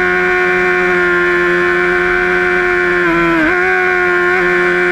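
Honda sportbike engine running hard at high, steady revs on a track straight, heard from the bike itself. Its pitch dips briefly and recovers about three and a half seconds in.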